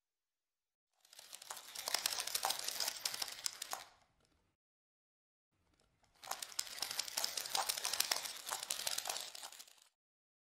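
Two spells of crackling, crinkling rustle, each lasting about three to four seconds, with silence between them.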